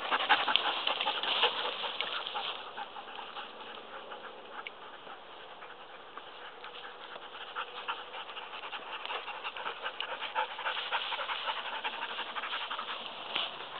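A dog panting close by, with the rustle of tall dry grass underfoot.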